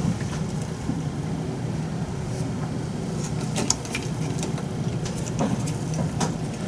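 A steady low mechanical hum, with a few light clicks of a tiny screwdriver and small screws being worked about halfway through and near the end.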